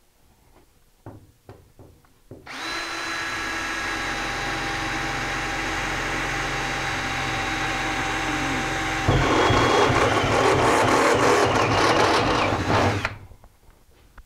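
A cordless Ryobi drill fitted with a step bit drills through the sheet-steel side of an electrical panel, after a few light handling clicks. The drill runs with a steady whine for about six seconds. About nine seconds in it turns louder and rougher as the bit cuts into the steel, then stops about thirteen seconds in.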